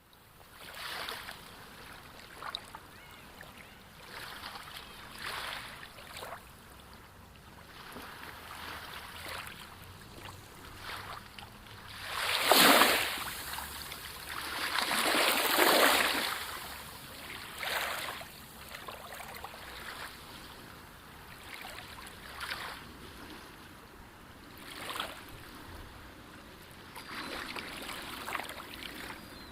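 Sea waves washing in and out, a swell of surf every few seconds, with two louder waves breaking about halfway through.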